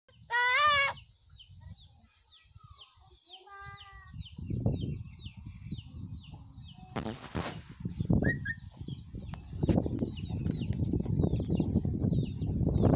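A parrot gives one loud squawk with a wavering pitch about half a second in, then a shorter, softer call a few seconds later. A faint high chirp repeats about twice a second in the background, and low rustling noise builds through the second half.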